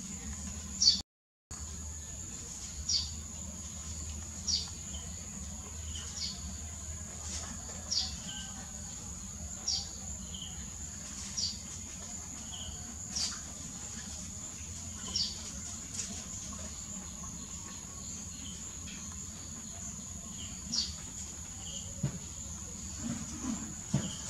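Outdoor insect drone, a steady high buzz like cicadas or crickets, with short high chirps repeating about every one and a half to two seconds. The sound cuts out briefly about a second in.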